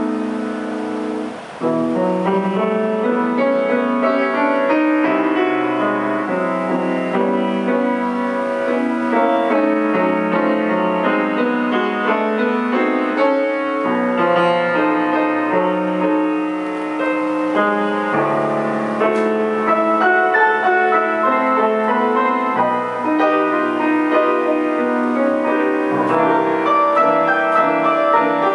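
Grand piano played solo: a continuous classical-style passage of many notes and chords, with a short break about a second and a half in before the playing picks up again.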